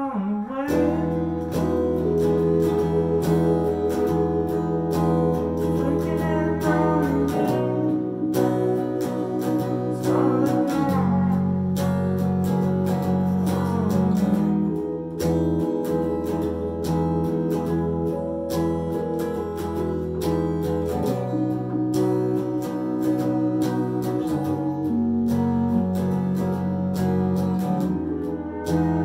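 A small band playing a song: electric guitar strummed through an amp over held keyboard chords that change every few seconds, with a voice singing at times.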